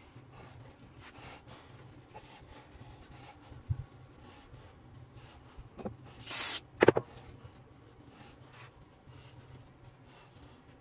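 Old sealant being wiped and scraped off a 231J transfer case housing: a faint, steady scratchy rubbing, with a knock about four seconds in. Between six and seven seconds in there is a short, loud burst of noise and then a sharp clank.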